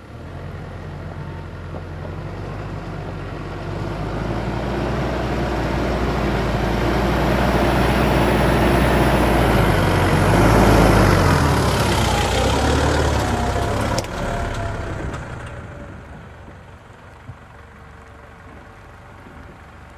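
Mitsubishi L200 Triton pickup engine pulling in first gear low range up a steep dirt hill. It grows louder to a peak about halfway through, then eases off and drops to a low steady run in the last few seconds.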